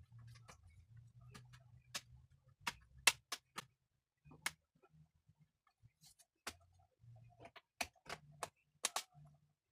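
Irregular sharp clicks and taps of small hard laptop parts being handled, about a dozen spread unevenly, over a faint low hum in the first few seconds.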